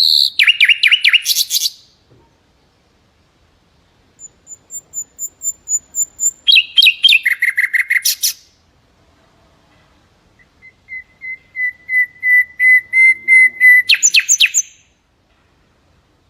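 Mangrove whistler singing three phrases of rapid repeated whistled notes with silent pauses between them. The second and third phrases grow louder as they go and end in a louder, higher flourish.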